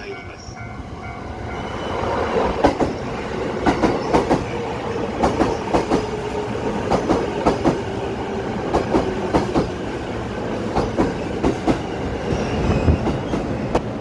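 Saikyo Line E233-series electric commuter train pulling into the station past the platform end, getting louder from about two seconds in. Its wheels clack over the rails in quick pairs of clicks over a steady running rumble.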